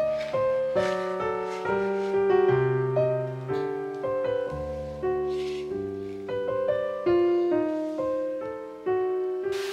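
Background piano music: a gentle melody of single notes over low chords, each note struck and fading away.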